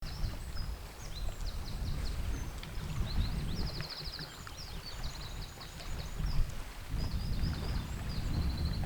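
Small songbirds singing in quick trills and chirps, over a low, uneven rumble.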